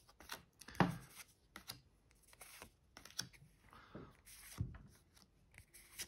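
Pokémon trading cards being handled, slid one at a time from the front of a small stack to the back, with a short sliding or flicking sound each time a card is moved, roughly once a second.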